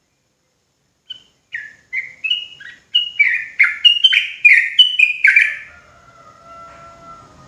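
Yellow-vented bulbul (trucukan) singing: a rapid run of about a dozen short falling notes that come quicker and louder, breaking off near the sixth second. Faint held tones follow.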